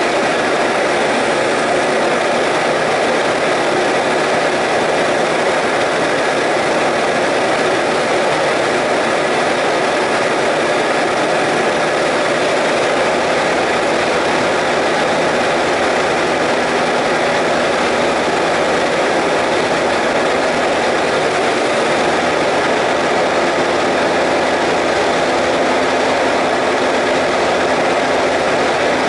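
Single-engine high-wing light aircraft's engine and propeller running steadily in flight, heard from inside the cockpit along with rushing airflow. The engine holds one constant tone.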